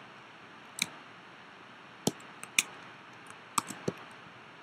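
Computer mouse and keyboard clicks: about six short, sharp clicks at irregular spacing over a faint steady hiss.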